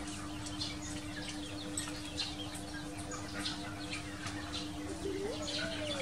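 Small birds chirping over and over, quick high chirps throughout, over a steady low hum. About five seconds in, a short call rises and then falls.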